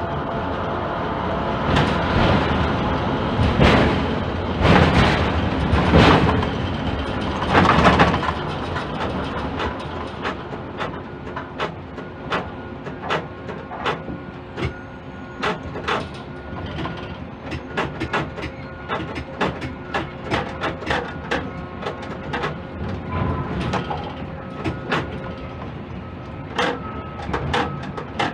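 Ship-to-shore quay crane heard from inside the operator's cab: a steady machine hum with a few held tones, clanks and rattles during the first eight seconds, then a run of sharp ticks, one or two a second, while a container is lowered into the ship's cell guides.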